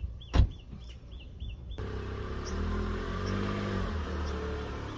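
A single sharp thump and a bird chirping several times in quick succession. After about two seconds the Tata Nexon's engine is heard running, its pitch rising and falling as the car is manoeuvred.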